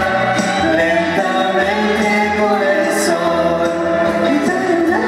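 A man and a woman singing a Spanish-language ballad together as a live duet into microphones, holding long notes.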